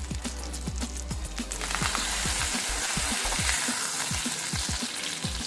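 Meat-filled lavash börek frying in oil in a non-stick pan, sizzling steadily; the sizzle gets much louder about a second and a half in, as the last piece is turned onto its unfried side. A background music track with a steady beat runs underneath.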